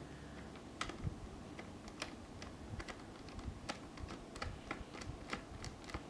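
Small screwdriver turning a screw out of a laptop's plastic bottom case: a run of irregular light clicks, a few a second.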